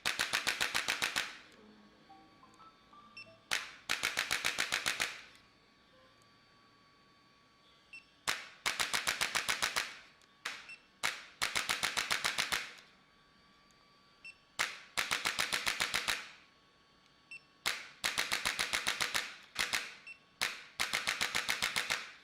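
Repeated bursts of rapid, evenly spaced sharp clicks, about a dozen a second. Each burst lasts a second or so, and there are about eight bursts with quiet gaps of a few seconds between them.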